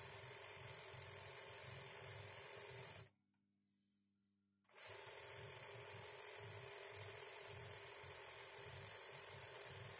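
Industrial embroidery sewing machine running as fabric is stitched under its needle: a steady whir with a low, regular pulsing. The sound drops away to near silence for about two seconds around three seconds in, then resumes.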